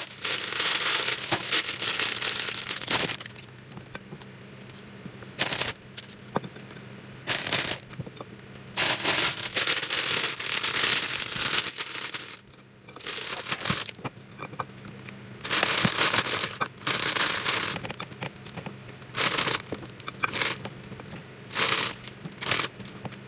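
Plastic bag crinkling and rustling in irregular bursts of a second or two as mini pancakes are pulled out of it by hand.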